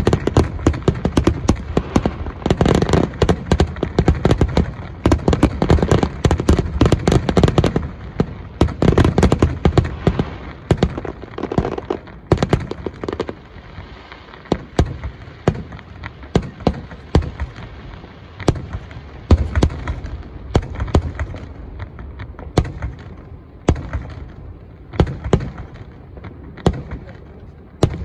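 Aerial firework shells bursting in the finale barrage: a dense, rapid string of bangs that thins out about halfway through into scattered single booms spaced a second or more apart.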